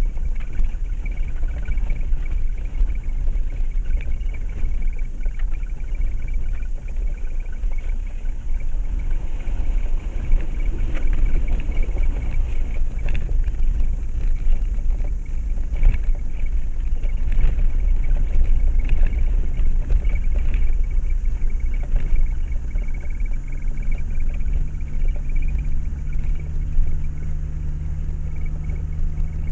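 A motor vehicle's engine running low and steady as it fords a river, with water noise and scattered knocks. Near the end the engine note steadies into a held hum.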